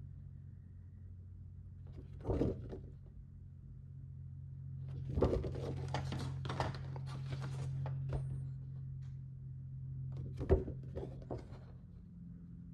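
Printed paper sheets being handled and swapped: brief rustles about two seconds in, longer rustling from about five to eight seconds, and a sharp tap a little after ten seconds, over a steady low hum.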